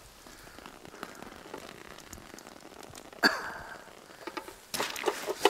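Light, even patter of falling water drops, with a sharp knock about three seconds in and a burst of crackly rustling near the end.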